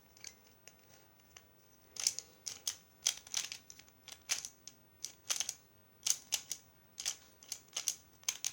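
Plastic pyraminx puzzle being turned fast in a timed solve. After a nearly quiet first two seconds come uneven clusters of sharp clicks and clacks, a turn or two each second.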